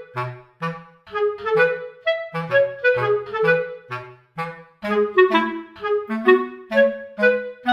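Instrumental background music: a melody in short, separate notes over a line of low bass notes.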